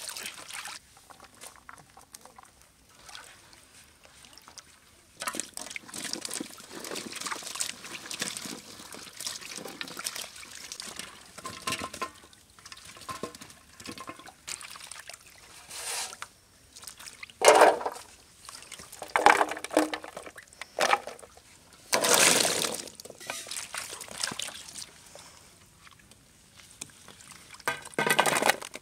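Hands swishing and sloshing chopped vegetables in water in an aluminium basin, washing them, with irregular splashes; the loudest come about two-thirds of the way through. Near the end, cut potato pieces drop onto a metal plate.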